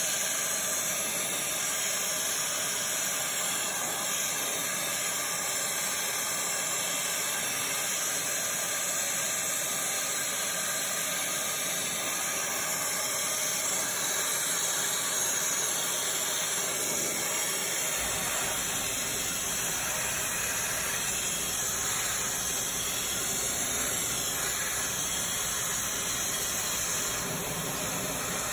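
Power sprayer's cleaning wand spraying a steady hissing jet of water into an open engine valley, washing out caked oil grime. About two-thirds of the way through a low hum joins in.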